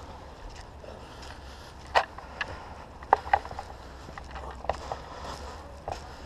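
A handful of sharp clicks and knocks at irregular intervals, the loudest about two and three seconds in, over a low steady rumble.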